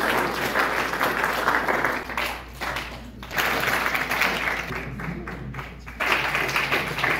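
Audience applauding, the clapping thinning for a moment a few seconds in, dying down, then breaking out again near the end.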